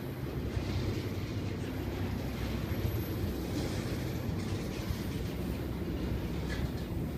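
Freight train's flatcars, loaded with truck trailers, rolling slowly past: a steady low rumble of wheels on rail.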